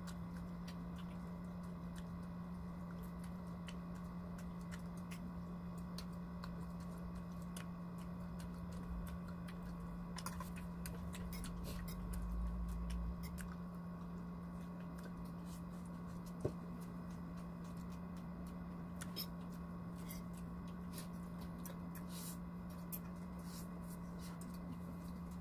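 Quiet eating sounds: scattered light clicks and taps of forks and tableware, over a steady low hum.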